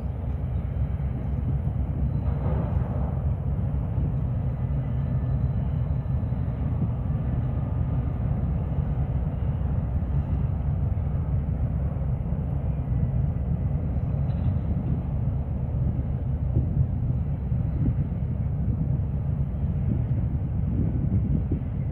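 Wind buffeting the microphone: a steady, loud low rumble with a brief gust of hiss about two and a half seconds in.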